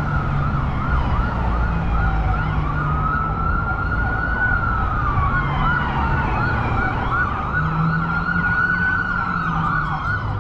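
Emergency vehicle siren going, switching between a slow rising-and-falling wail and a rapid yelp, over a low city traffic rumble.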